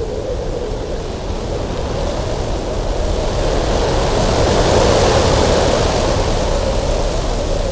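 Cold winter wind blowing hard, a steady rush with a low wavering howl. It swells into a stronger gust about halfway through and eases off near the end.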